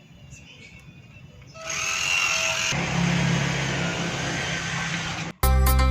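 Small electric motor and gearbox of a DIY mini boat drive whirring at speed with a high whine; it starts about a second and a half in and cuts off suddenly near the end, where plucked-string music begins.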